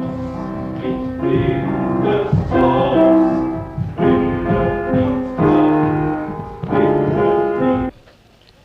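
Piano music: slow sustained chords, a new chord struck every second or so, stopping abruptly near the end.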